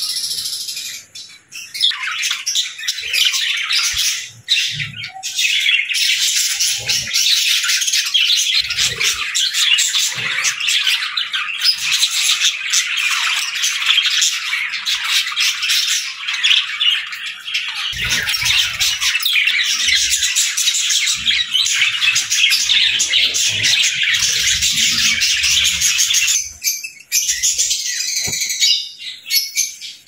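A flock of budgerigars chattering, a dense, continuous warble of many overlapping chirps and squawks. It thins out near the end.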